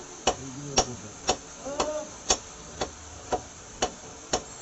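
A butcher's blade striking a wooden chopping block in sharp, evenly spaced knocks, about two a second.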